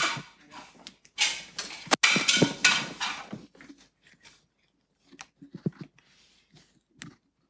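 Microphone handling noise: loud rustling and rubbing with a few knocks, in two stretches over the first three and a half seconds. It is followed by a few faint scattered clicks.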